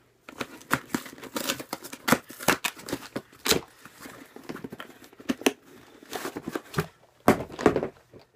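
Packaging being torn and crinkled open by hand: an irregular run of rips and rustles, loudest near the end. The package is a hard one to get into.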